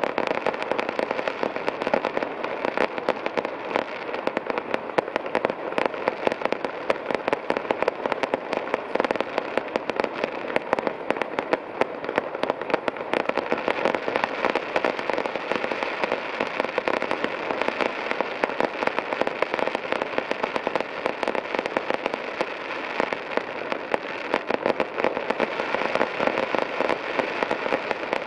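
Fireworks display: aerial shells bursting and crackling in a dense, unbroken barrage of bangs and crackles with no pause.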